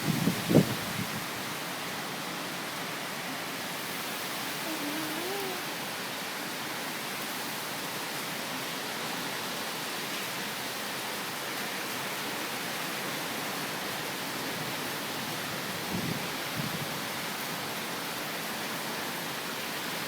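Hurricane-force wind and heavy rain making a steady, dense rushing, with gusts buffeting the microphone near the start and about sixteen seconds in. A faint wavering tone rises and falls briefly about five seconds in.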